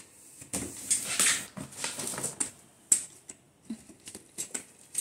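Plastic bubble wrap around a toy box rustling and crinkling under a hand, in several scratchy bursts over the first half, followed by scattered light clicks and ticks.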